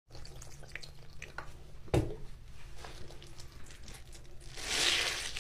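Soapy scrub sponge and dish-soap foam in a sink, giving small wet crackles and squelches over a low steady hum. There is a single sharp knock about two seconds in, and a louder hissing squish near the end as the sponge is handled.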